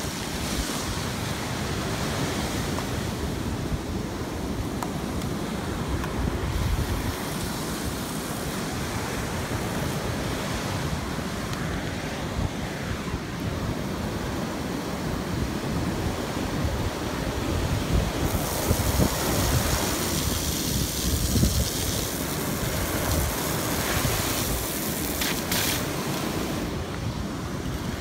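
Wind buffeting the microphone in a steady low rumble, mixed with the hiss of surf; the hiss grows brighter and louder for several seconds in the second half.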